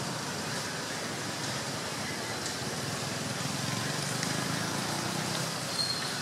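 Steady outdoor background noise, a low rumble with hiss, with a short high chirp near the end.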